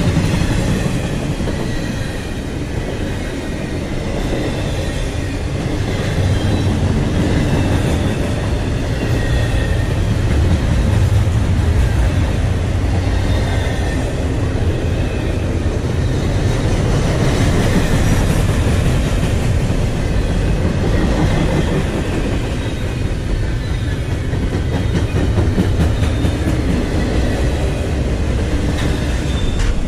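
Double-stack intermodal freight train passing close by: a steady rumble and clatter of well-car wheels over the rails, with thin wavering squeals from the wheels coming and going.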